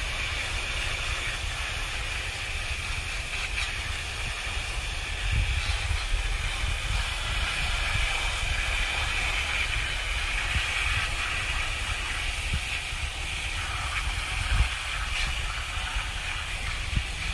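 Garden hose pistol-grip spray nozzle spraying a steady hissing jet of water onto rocks and gravel on a wire-mesh sifting screen, washing the dirt off.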